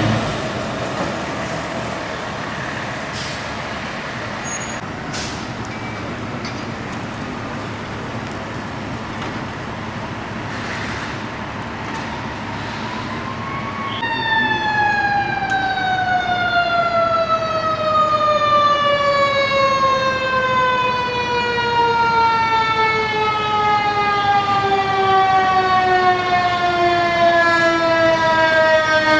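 Fire apparatus engine and road noise as the ladder truck moves off. About halfway through, a mechanical Q siren comes in loud and winds down in one long, slowly falling wail.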